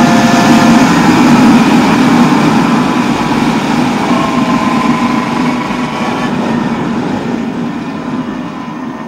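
Modified Goped's reed-valve 63 cc two-stroke engine with an expansion-chamber pipe, running at high revs, then easing off, its sound fading steadily toward the end as the scooter slows.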